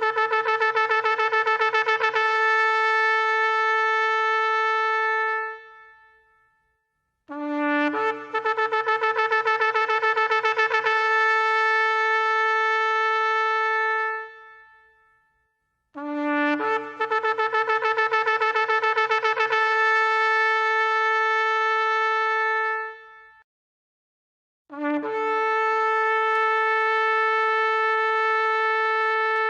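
Shofar sounding a series of long blasts, about seven seconds each with short pauses between. Each blast opens on a short lower note, jumps up to a held higher note, and flutters for a few seconds before holding steady.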